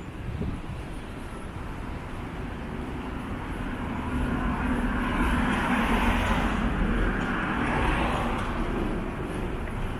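City street traffic noise: a passing vehicle grows louder from about four seconds in, is loudest a little past the middle, and then fades.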